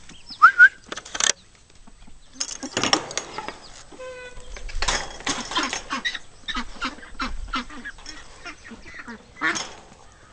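Flock of domestic ducks quacking, many short overlapping calls at irregular intervals with a few louder ones standing out.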